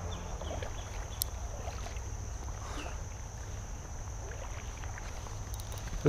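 Outdoor ambience on a chest-mounted action camera: a steady low rumble of wind and handling noise on the microphone under a steady high-pitched hum, with one sharp click about a second in.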